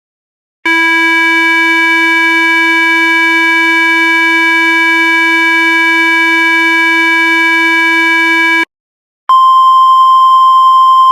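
Mock Emergency Alert System alert tones: a loud, steady, buzzy electronic tone held for about eight seconds. After a brief gap comes a higher, purer steady tone for about two seconds that cuts off suddenly.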